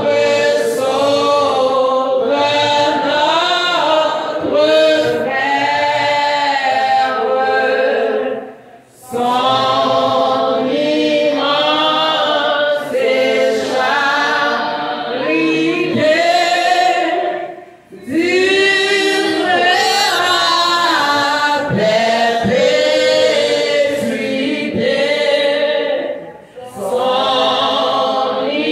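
A group of voices singing together, unaccompanied, in long sung phrases broken by three brief pauses.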